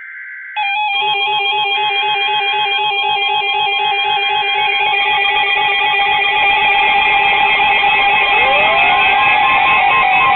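Several weather alert radios sounding their alarms at once: overlapping electronic warbling and beeping tones that start together just after a brief burst of data tone, signalling that a new weather warning is coming in.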